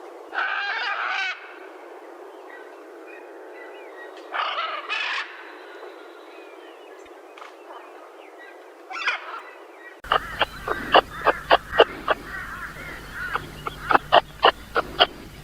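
Animal calls: three short bird-like calls a few seconds apart over a steady hiss, then, after a cut about two-thirds of the way through, a rapid run of sharp repeated calls at about three to four a second.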